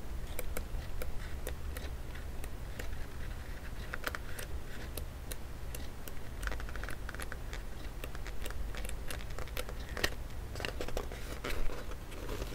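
Pages of a glossy photo book being riffled quickly with the thumb, a rapid, irregular run of light papery flicks and ticks in bursts, over a steady low hum.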